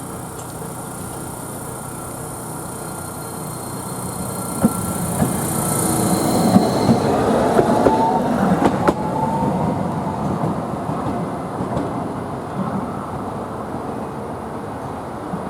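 Toei Arakawa Line streetcar passing over a level crossing, growing louder and then fading, with sharp wheel clacks over the rail joints in the middle and a brief rising wheel squeal.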